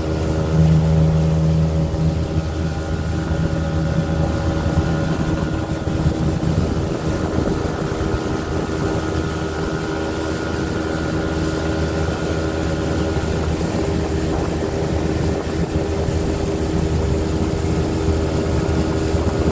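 Outboard motor running at a steady cruising speed, pushing a small aluminium boat across the water: a constant engine note over a steady rush of noise.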